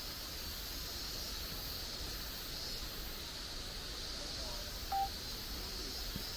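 Steady outdoor hiss on a mountain walk, swelling slightly in its high part. About five seconds in comes one brief whistle-like beep.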